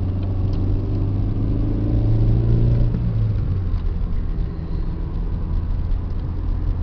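Car engine and road noise heard from inside the cabin while driving: a steady low rumble whose engine note swells about two seconds in, then eases off.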